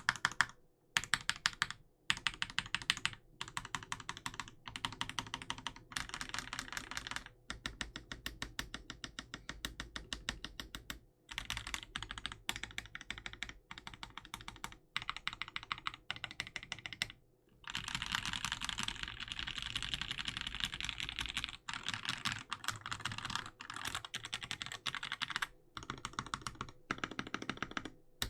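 Modifier keys on a Corsair K70 mechanical keyboard, fitted with lubed switches (SP-Star bottoms, NK Cream tops and stems, Krytox 205g0), pressed in quick runs of many keystrokes with short pauses between the runs. The run about two-thirds of the way through is denser.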